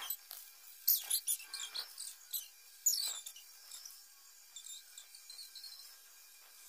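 Paper rustling as a workbook page is turned, then a pencil scratching on the page in quick short strokes, busiest in the first three seconds and fainter after.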